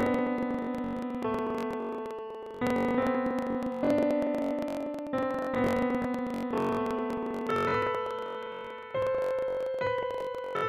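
Background music on a keyboard: a slow melody of notes struck and left to fade, a new note or chord about every second.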